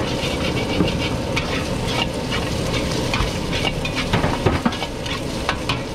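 Metal wok ladle scraping and knocking against a steel wok as fried rice is stir-fried, over steady sizzling. The knocks come irregularly, with a few sharper ones about four seconds in.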